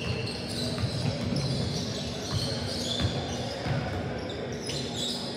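Live basketball play on a hardwood gym court: the ball bouncing as it is dribbled, sneakers squeaking, and players' voices.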